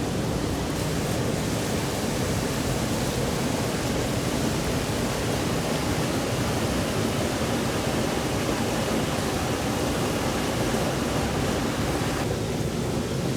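Mountain stream flowing over rocks: a steady, even rushing of water.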